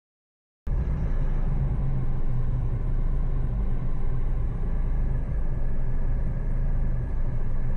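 Car driving: a steady low rumble of engine and road noise that cuts in abruptly about half a second in.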